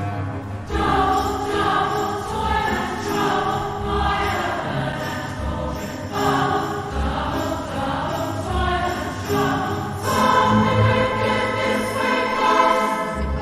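Choral music: voices singing over orchestral backing, with recurring low beats.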